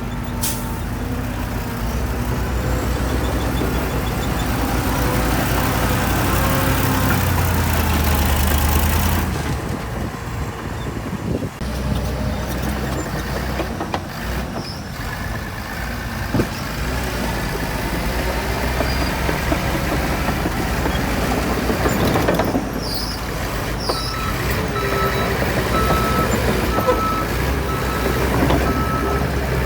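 Heavy earthmoving machinery, diesel engines running under load, with a backup alarm beeping steadily over the last few seconds as a machine reverses.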